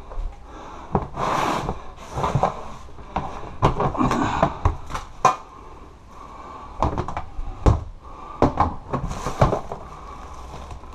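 Household belongings being rummaged through by hand: plastic storage tubs, cardboard boxes and a plastic-wrapped tray shifting against each other in irregular knocks, clunks and crinkly rustling.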